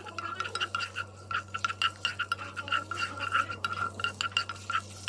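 A wooden spoon stirring sliced onions in a speckled marble-coated nonstick frying pan: a quick, irregular run of scrapes and taps against the pan.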